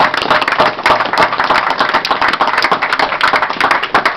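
A small crowd clapping, many hands together in a steady round of applause.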